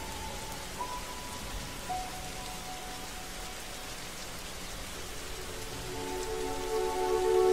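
Steady rain falling, with soft music laid over it: a few faint held notes about a second in, then sustained chords swelling up about six seconds in and growing louder near the end.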